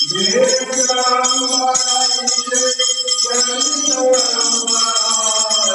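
Aarti in a Hindu temple: bells ringing rapidly and without pause over a devotional song with a sung melody.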